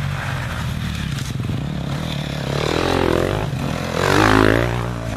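Dirt bike engines running on a woodland trail as the riders pull away, revving up and down twice. The second rev is the loudest, as a bike passes close by about four seconds in.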